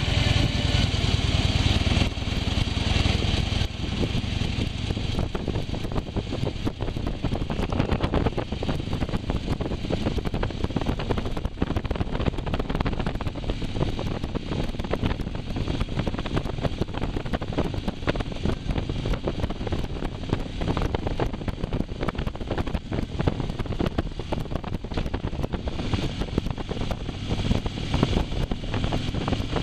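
Motorcycle engine running on the road, mixed with steady wind rush over the microphone. It is a little louder in the first few seconds and again near the end.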